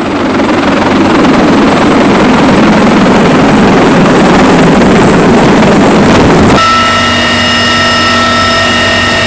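CH-53E Super Stallion heavy-lift helicopter hovering close overhead: a loud, steady rotor and three-turbine roar with rotor wash buffeting the microphone. About two thirds of the way in the sound cuts to a steadier whine made of several high tones.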